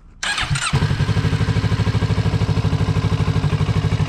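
Motorcycle engine started on the electric starter: a brief crank, then it catches within about half a second and settles into a steady, evenly pulsing idle.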